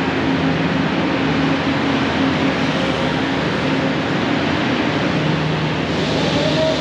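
Steady rumble and hiss of construction machinery and city traffic, with a low engine hum that comes and goes; near the end a higher steady tone joins in.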